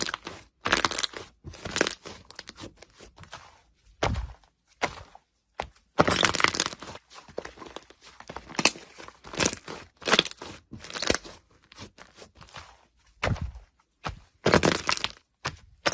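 Slime being squished and pressed, making irregular bursts of crackling and crunching with short pauses between them.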